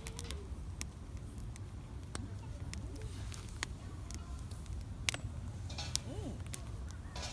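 Wood fire crackling, with sharp irregular pops and snaps over a low steady rumble.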